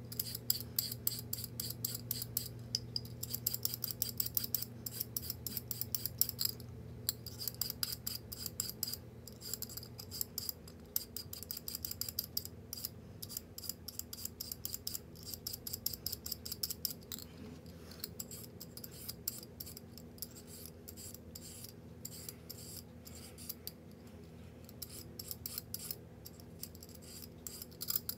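Rapid, dense clicking and tapping of kitchen utensils during cooking, sped up to double speed, thinning out in the second half. A low steady hum runs beneath and fades about a third of the way in.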